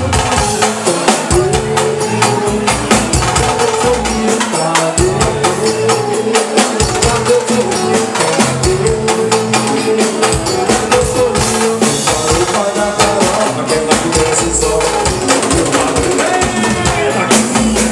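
Live band playing loud, amplified Bahian pagode music: a busy, steady percussion beat with tambourine-like strokes over bass and a repeating keyboard-like melody.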